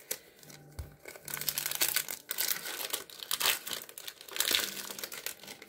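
Plastic wrapper of a trading-card pack crinkling as it is handled and torn open, a dense run of short crackles starting about a second in.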